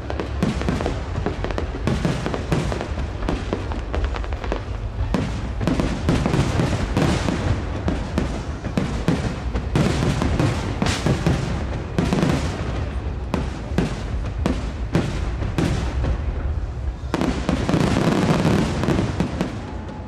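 Fireworks finale: a dense, rapid barrage of aerial shell bursts and crackle, loud and nearly continuous, with a heavier continuous rush near the end.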